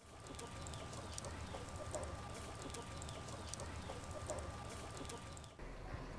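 Chickens clucking with small birds chirping: many short repeated calls that stop abruptly near the end.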